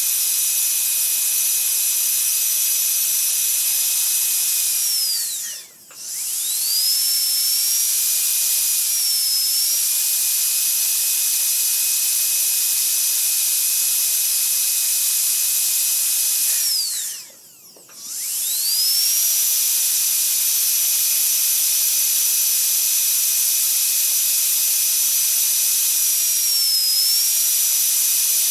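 Dentist's drill running with a steady high-pitched whine and a hiss, winding down to a stop and spinning back up twice, once about six seconds in and again about seventeen seconds in. Its pitch dips briefly a couple of times while it runs.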